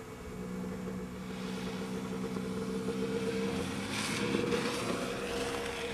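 Snowmobile engine running with a steady drone, slowly getting a little louder.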